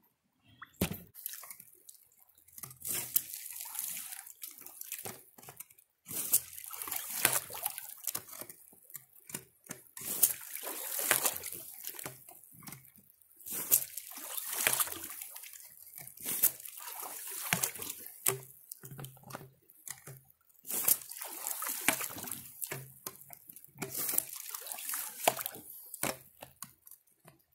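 Water surging and sloshing from a PVC hand dredge being pumped in a shallow creek, its outlet emptying into a bucket sunk in the stream. The surges come in uneven bursts a second or two apart.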